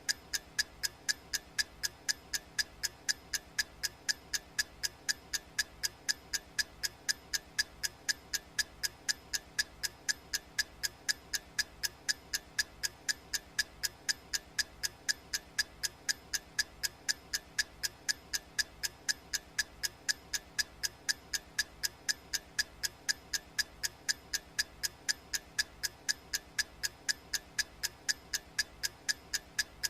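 Clock ticking sound effect of a countdown timer: a steady run of sharp, evenly spaced ticks.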